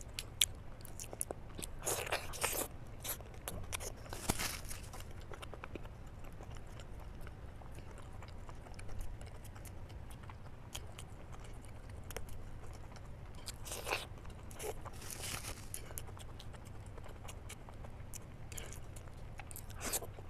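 Close-miked chewing of boiled eggs in masala gravy: soft, wet mouth sounds and small clicks, with several louder smacking bursts spread through, over a steady low hum.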